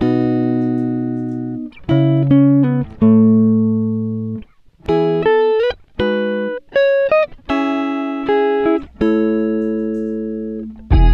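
Background music: slow plucked guitar notes and chords, each left to ring and fade, with a couple of sliding notes.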